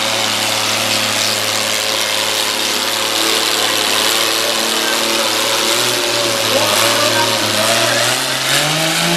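Farmall 460 pulling tractor's engine running steadily under load as it drags a weight-transfer sled, its pitch rising near the end.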